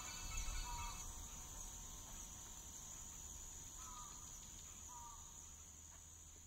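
Faint insect chorus: a steady high-pitched trill with a few short chirps, slowly fading out.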